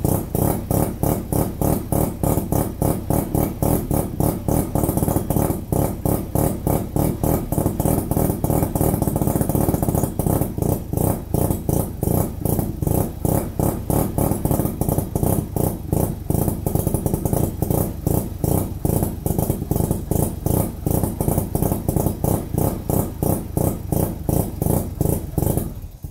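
Bridgeported Mazda 13B-REW two-rotor rotary engine running at a rough, low idle, its exhaust braps coming as an uneven string of pulses, about four a second. The engine is freshly built and will not hold idle on its own: it is kept running on a little throttle because the idle control cannot open the throttle far enough.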